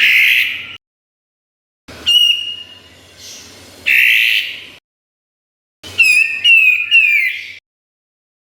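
Kapas tembak songbird singing in three short bursts of sharp whistled notes and quick falling chirps, each cut off abruptly by silence.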